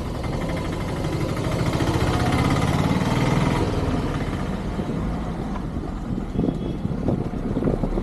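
Ford Ikon sedan's engine running as the car crawls slowly along a rough lane, its note swelling about two to three seconds in and then easing off. Rough crackling noise joins it near the end.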